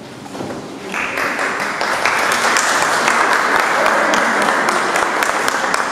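Audience applause: clapping starts about a second in and builds to steady, dense applause.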